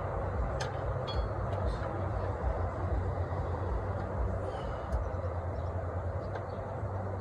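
Steady low mechanical rumble, like a vehicle engine or heavy traffic running in the background, with a few faint high chirps about a second in and again after four seconds.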